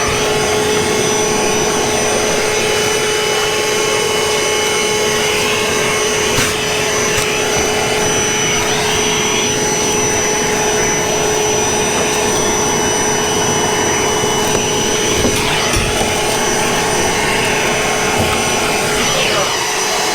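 Milwaukee M18 cordless shop vac running steadily while vacuuming a floor: a constant whine over the rush of air being sucked in.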